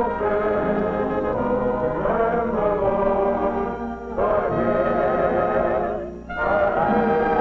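Orchestral soundtrack music with brass and singing voices, held phrases with vibrato and a short break about six seconds in.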